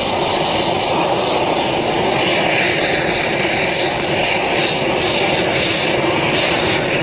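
Steady, loud aircraft engine noise, an even dense rush with no let-up, heard from inside the cabin of an aircraft in flight.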